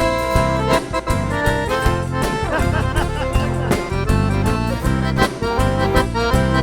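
Instrumental break of a lively gaúcho folk song. An accordion leads over a steady bass line and rhythm accompaniment in an even, bouncing beat.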